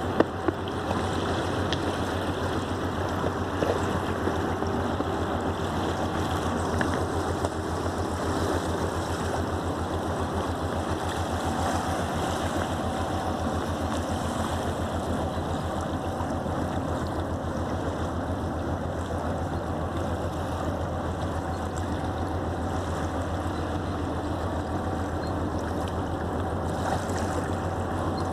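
Steady low, evenly pulsing drone of a passing river barge's diesel engine, over the rush and lapping of the flooded Rhine against the quay.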